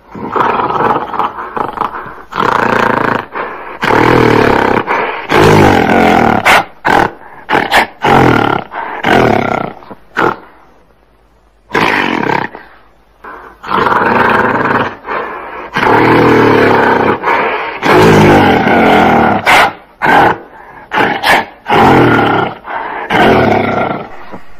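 Gorilla roaring and growling: loud, rough calls in two long bouts with a pause about halfway through, each bout breaking into short grunting calls.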